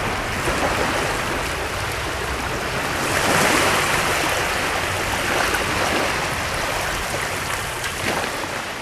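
Small waves washing onto a shore: a steady wash of surf that swells as a wave comes in about three seconds in, then eases back.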